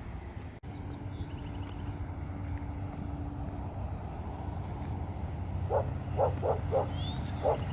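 A dog giving a quick series of short, high yips, starting about three-quarters of the way in, over a steady low outdoor rumble.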